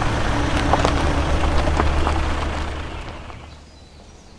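Background music: a low held drone with a hiss and scattered light ticks, fading out about three seconds in.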